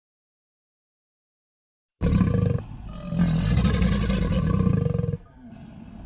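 About two seconds of silence, then a loud, low animal growl with a short dip, turning quieter for the last second.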